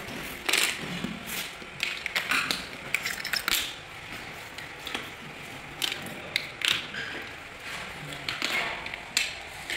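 Red plastic tile-leveling clips and wedges clicking and clattering, pushed into place by hand between large porcelain floor tiles, in irregular sharp clicks.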